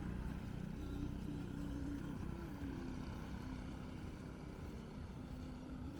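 A motor vehicle's engine running with a low hum, slowly getting quieter.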